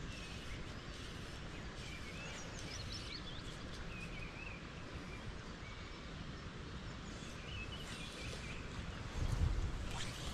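Steady outdoor wind noise with faint bird calls chirping now and then. There is a louder low rumble about nine seconds in.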